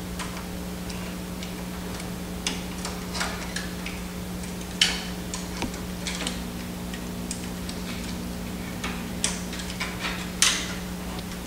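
Irregular clicks and knocks of plastic and metal parts as a capping station assembly is fitted into a direct-to-garment printer's frame, over a steady low hum. The sharpest knocks come about five seconds in and again near the end.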